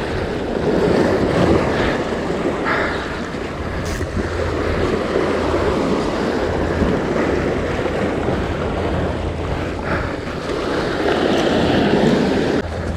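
Sea surf washing against the rocks, with wind buffeting the microphone; the wash swells about a second in and again near the end.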